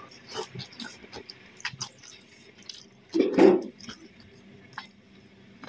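Close-up mouth sounds of a person chewing raw cucumber slices and rice: wet crunching and lip smacks as a run of small clicks, with one louder, longer mouth sound about three seconds in.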